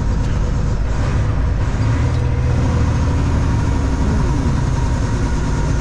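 Semi-truck diesel engine running steadily, its low note growing stronger about two seconds in and easing off around four seconds.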